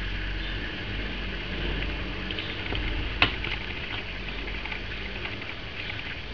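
Mother cat tending her newborn kittens: soft wet clicking and rustling, busiest in the middle, with one sharp click about three seconds in, over a steady low hum.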